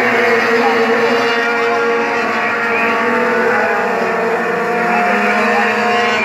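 A field of race trucks running together on a paved oval, several engines droning at once. Their pitches slide slightly up and down as the trucks go around.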